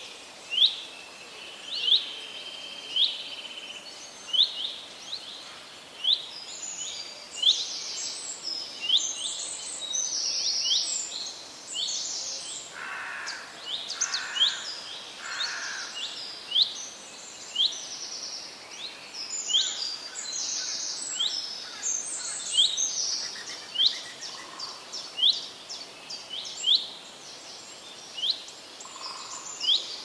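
Birds calling: one bird repeats a short, sharp rising note a little more than once a second, while others twitter higher and faster through the middle, with a few lower calls about halfway through.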